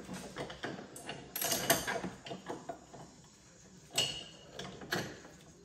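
Hand wrenches working the nuts and bolts of a bearing puller on the front wheel hub: irregular metal clinks and scrapes, busiest a second or two in, with a sharp ringing clink about four seconds in and another near five.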